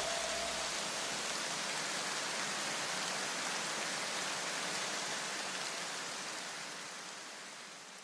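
The last notes of electronic music die away in the first second, leaving a steady, even rushing hiss that slowly fades out near the end.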